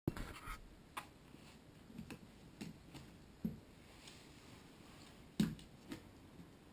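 Scattered light clicks and knocks from hands handling the camera and then the drone's frame and wiring connectors, with a brief rustle at the start and the loudest knock about five and a half seconds in.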